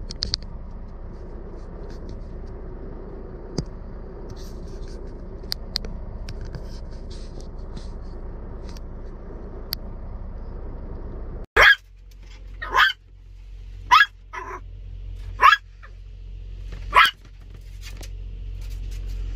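A steady low rumble, then, after a sudden cut about halfway through, a dog barking sharply five times, roughly one bark every second and a half.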